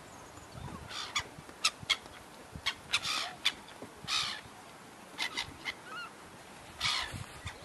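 Gulls calling: a string of short, harsh squawks, with a few longer calls about three, four and seven seconds in.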